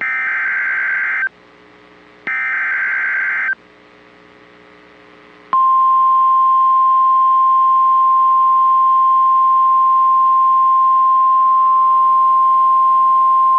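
NOAA Weather Radio alert signal: two short bursts of the warbling SAME digital header, each about a second long and a second apart, then after a pause of about two seconds the steady 1050 Hz warning alarm tone, starting about five seconds in and holding. The header and alarm tone mark the start of a new warning broadcast, a severe thunderstorm warning, and set off alerting weather radios.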